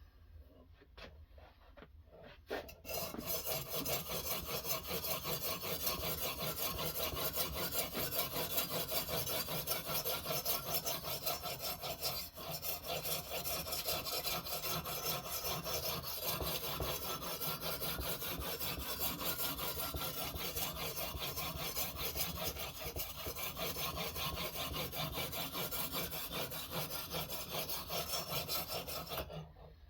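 Sharpening stone of a guided knife-sharpening system rubbing rapidly back and forth along a knife's edge, a continuous gritty scrape. It starts about three seconds in and stops abruptly just before the end.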